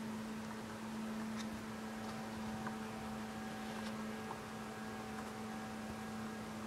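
A steady electrical-sounding hum at one low pitch over a soft hiss. A fainter, higher tone joins about two seconds in, and there are a few faint ticks.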